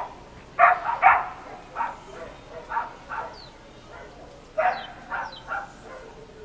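Short barks repeated in clusters of two or three, about eight in all, with faint high falling bird chirps between them.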